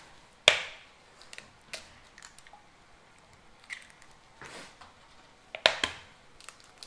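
Eggs being cracked by hand over a mixing bowl: a few sharp taps and crunches of eggshell, the strongest about half a second in and again near the end.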